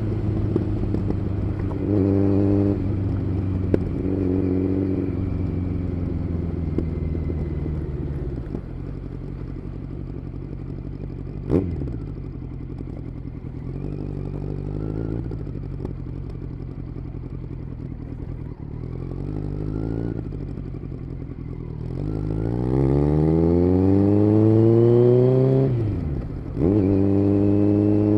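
Kawasaki Z900's inline-four engine through an aftermarket SC Project exhaust while riding. It runs steadily with short throttle blips, eases off through a quieter middle stretch broken by one short sharp noise, then pulls hard with the pitch rising for several seconds. The pitch drops sharply at a gear change and the engine picks up again near the end.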